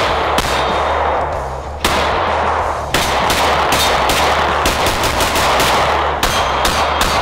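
CZ P10F striker-fired pistol being shot: a few single shots about a second apart, then a quicker string of shots at roughly two to three a second.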